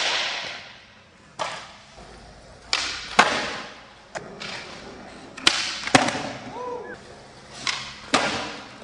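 Skateboards doing flatground tricks on a concrete floor: a string of sharp pops and clacks as boards are snapped off the tail and land, about nine hits, often in quick pairs, each echoing in a large hard-walled room.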